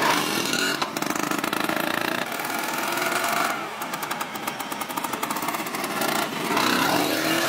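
1962 Vespa scooter's single-cylinder two-stroke engine running as it is ridden. The revs ease off midway, where separate firing beats can be heard, and pick up again near the end.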